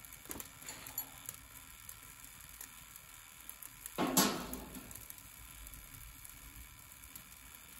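Dualit two-slice toaster's heating elements crackling with faint irregular ticks and clicks as they heat up, which is normal for these toasters. About four seconds in there is a brief, louder whoosh.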